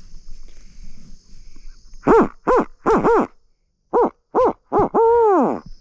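Mouth-blown owl hooter (turkey locator call) imitating a barred owl's 'who cooks for you, who cooks for you-all': two quick groups of short hoots that each rise and fall in pitch, ending in one long drawn-out note that falls away. It is blown loud to make a roosted gobbler shock-gobble.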